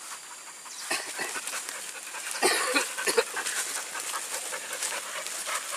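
Leashed hunting dogs panting in quick, uneven breaths.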